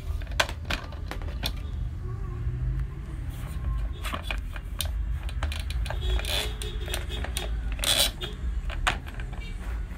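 Irregular plastic clicks and knocks from a Braun citrus juicer's clear jug being handled and turned on its motor base, the loudest knock about eight seconds in. A steady low rumble runs underneath.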